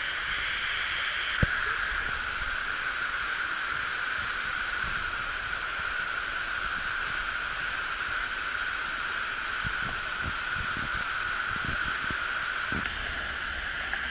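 Steady rush of falling water from a waterfall, an even hiss without let-up, with a single brief knock about a second and a half in.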